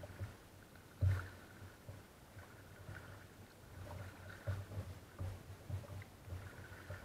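Kayak being paddled on calm sea: paddle strokes and light splashes of water, with irregular low thuds and one sharper, louder thump about a second in.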